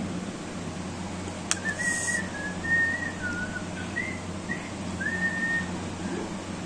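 A person whistling a short tune: a string of high held notes that step up and down, starting about a second and a half in just after a sharp click. A steady low hum runs underneath.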